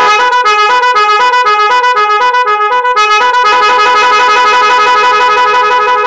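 A pair of 12 V electric snail horns driven by a multi-tone 'magic horn' sound module, sounding loudly. For about three seconds it plays short notes that hop between pitches like a tune, then switches to a faster, even warbling trill.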